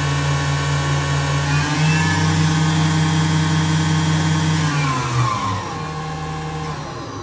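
Spindle of a Fadal VMC-4020HT CNC vertical machining center running at a steady speed with a steady motor whine. Its pitch steps slightly about two seconds in, then falls about five seconds in as the spindle spins down, and the sound fades.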